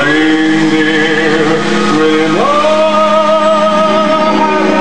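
Music with long held notes; one note slides up about two and a half seconds in.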